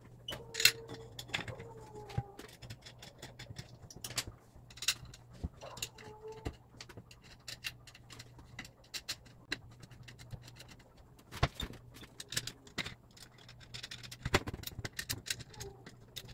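Irregular small clicks and metallic taps of machine screws, a hex key and aluminium frame bars being handled and screwed together, with a few brief faint squeaks near the start and about six seconds in.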